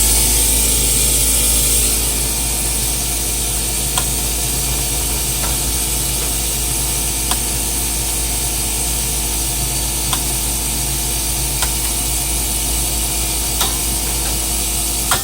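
Compressor running steadily with a low hum and a high hiss, with a faint sharp click every second or two.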